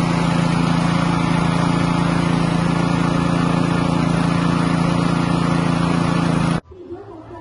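Small engine of a fish feed pellet machine running steadily at constant speed. It cuts off abruptly near the end.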